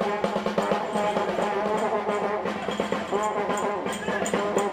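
Live Uzbek folk music: a snare-type drum beaten with sticks at about three strokes a second, under a loud wind-instrument melody and a held low drone.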